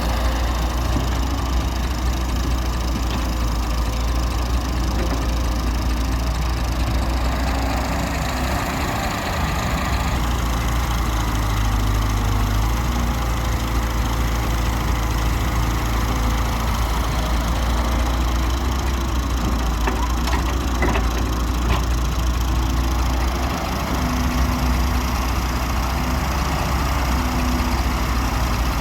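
Heavy diesel earthmoving machinery, an excavator and tractor at work, running steadily with a low drone. A few sharp knocks come about two-thirds of the way through.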